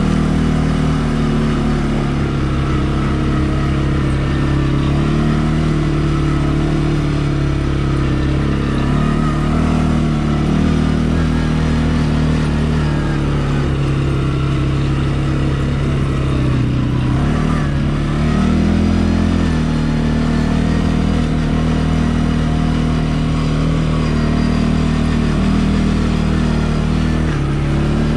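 CFMOTO ATV engine running steadily under load on a dirt track, its revs shifting a few times and dipping then picking up again about two-thirds of the way through.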